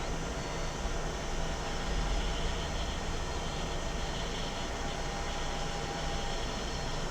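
Hot air rework station blowing a steady stream of air at low airflow, heating a component on a laptop motherboard.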